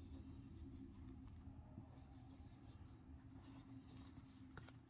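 Near silence: faint scratchy handling of a crochet hook working yarn over a steady low hum, with a couple of soft clicks near the end.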